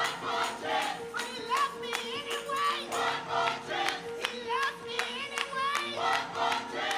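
Gospel choir singing with instrumental accompaniment: voices over a held tone and a steady percussive beat.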